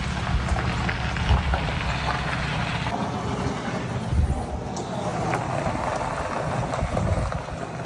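A vehicle running at low speed: a steady low engine rumble under a broad hiss of road or wind noise, with a few faint ticks.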